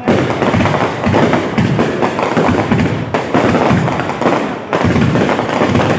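Fireworks going off in a rapid, continuous barrage of bangs and crackling, with music playing alongside.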